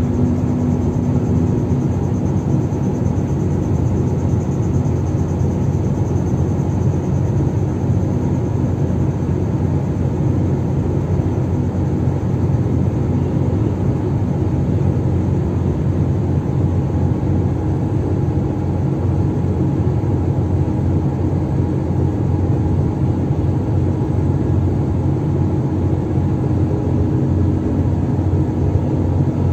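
Landing craft's diesel engines running steadily under way, a constant low drone with no change in speed.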